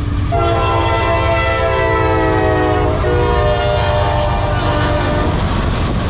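Norfolk Southern diesel freight locomotive's air horn sounding two long blasts, the first starting just after the start and breaking about three seconds in, the second ending about five seconds in, the pitch sagging slightly. Under it the freight train rumbles past.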